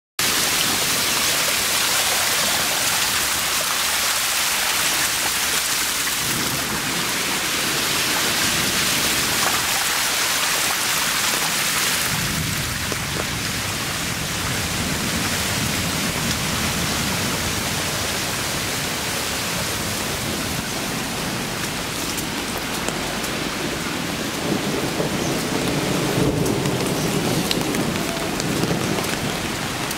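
Steady hiss of rainwater, with a lower rumble joining about twelve seconds in.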